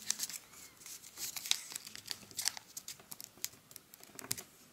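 Origami paper crinkling and rustling under the fingers as a small flap is tucked in and pressed flat, in irregular light crackles.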